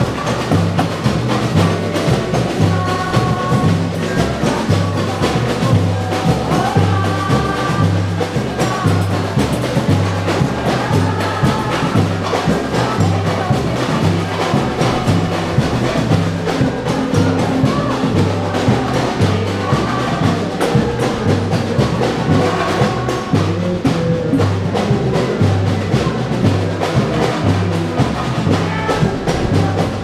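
Live samba band: surdo bass drums and other percussion playing a steady, repeating groove, with a melody carried over the top.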